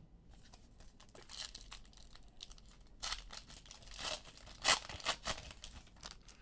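Trading-card pack wrapper being torn open and crinkled, rustling throughout, with a couple of sharper rips about five seconds in.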